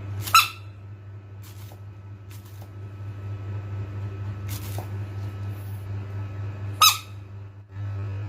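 A frog giving two short, high squeaky calls about six seconds apart, each bending down slightly in pitch, over a steady low hum.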